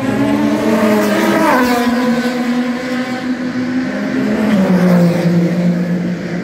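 Race car engine sound: a steady engine note with a falling sweep about a second and a half in, then dropping to a lower pitch near the end.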